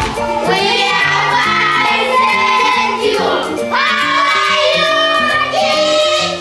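A class of children singing together in chorus, over an accompaniment of low notes that change in steps.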